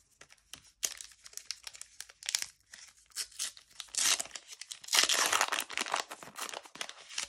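Plastic wrapper of a Panini Euro 2020 trading-card booster pack being torn open and unwrapped by hand, crinkling and crackling, loudest about four to six seconds in.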